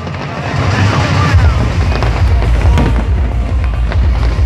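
Aerial firework shells bursting, with repeated sharp bangs and crackles over a dense low rumble, while music plays underneath.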